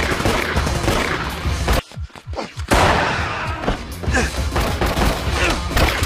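Film soundtrack of a gunfight: repeated gunfire over action music, with a brief drop in level about two seconds in.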